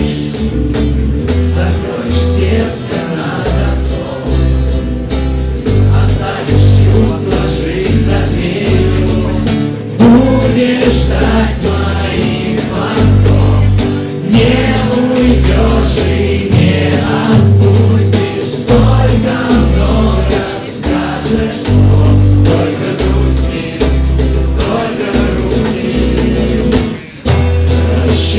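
Music: a song with a bass line in steady blocks of notes under singing, dropping out briefly about a second before the end.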